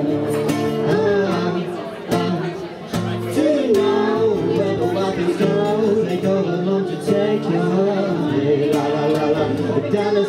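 Live acoustic duo: a steel-string acoustic guitar strummed while a man and a woman sing together into microphones.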